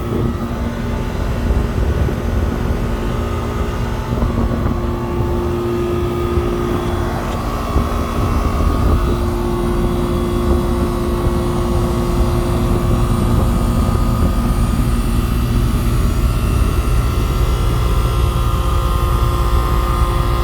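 Air-conditioning condensing unit running steadily: the compressor's hum and the condenser fan's rush, with its condenser coil not yet washed.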